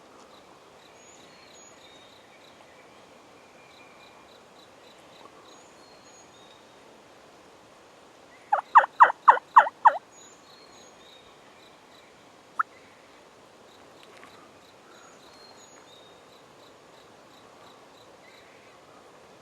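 A run of about seven loud wild turkey yelps in quick succession, about a second and a half long, roughly eight seconds in, followed a few seconds later by one short sharp note like a cluck. Faint songbird chirps sound behind.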